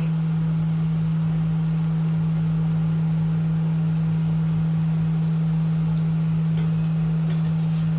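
A loud, steady low hum on one unchanging tone, with a light hiss and a few faint soft clicks over it.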